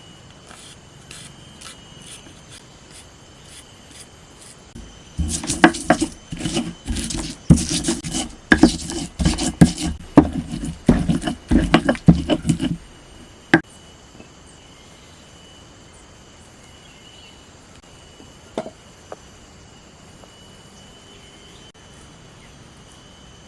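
Hand food preparation: a run of fast knocks and scraping strokes on wood lasting about eight seconds, then a few single knocks.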